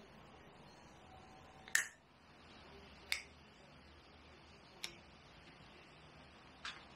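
Four sharp snips of cutters on a USB cable, spaced one to two seconds apart, over a faint steady background.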